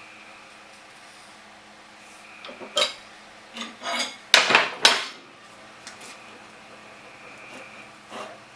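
Metal tools and steel machine parts clinking and clattering together: a few light clinks, then a louder cluster of clanks about four seconds in, and two light ones near the end.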